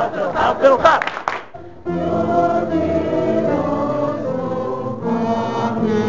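A group of young voices shouting and cheering for about a second and a half, then cutting to a group singing a long held chord together, which moves to a new chord about five seconds in.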